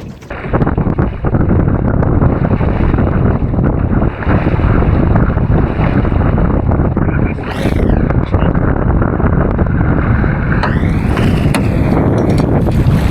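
Strong wind buffeting the microphone in a loud, steady rumble over open water. About ten seconds in, a brief whine rises and falls.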